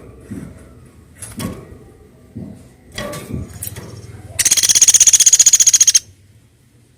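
Woodpecker giving a loud, fast rattling call, a quick even series of high notes lasting about a second and a half from a little past halfway. Before it come a few scattered soft knocks.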